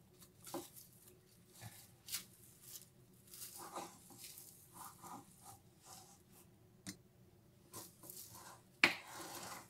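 Silicone spatula spreading thick chocolate cream over a sponge cake layer: soft scraping and smearing with light taps, and a louder scrape near the end.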